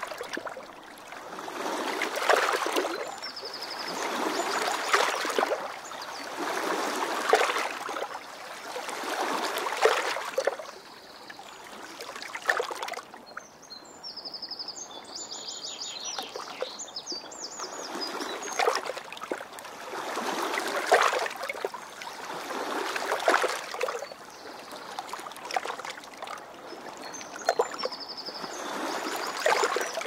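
River water rushing and lapping in waves that swell and ebb about every two to three seconds. A small bird gives a rapid trill three times.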